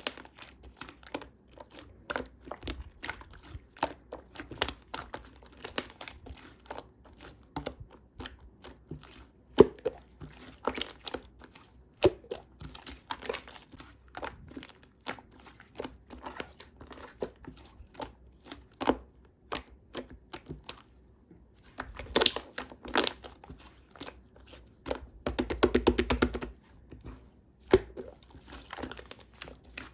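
Packaging being handled: crinkling and tearing with many sharp clicks and taps, and a dense, rapid run of crackling near the end.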